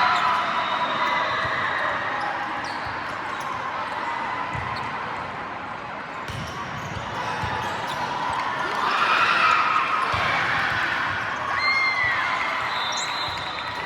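Gymnasium crowd noise during an indoor youth match: spectators' voices swell into cheering about nine seconds in, with a ball thudding on the court and a short squeak near the end.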